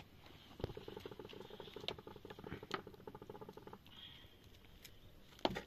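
A metal ladle scraping and stirring in a metal cooking pot of soup, a rapid, fine scraping for about three seconds, with scattered sharp clicks. A louder clatter comes near the end.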